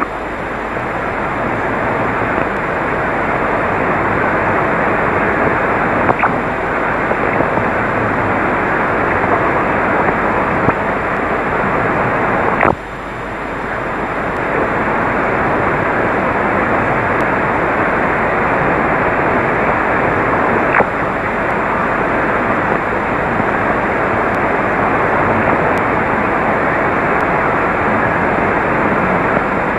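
Steady radio static hiss from an HF transceiver receiving on the 11-metre band, an open channel with no voice coming through. A few faint clicks break it, and after a sharper one about 13 seconds in the hiss dips and then builds back up.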